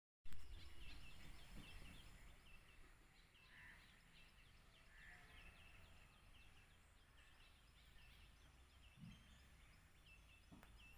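Faint outdoor ambience of birds chirping: many short, quick chirps repeating throughout, with a low rumble underneath.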